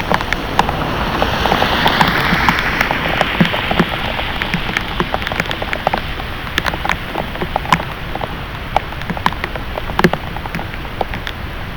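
Heavy rain pouring down, with many sharp splats of drops hitting close by. The downpour swells louder about a second in, then eases back a few seconds later.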